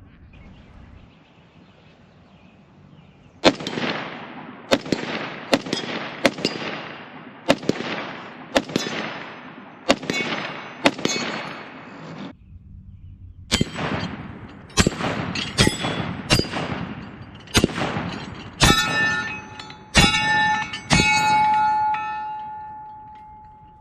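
Semi-automatic rifle firing about twenty shots in two quick strings, roughly one shot a second, with a short pause between them. Steel targets ring with a sustained metallic tone that fades out near the end.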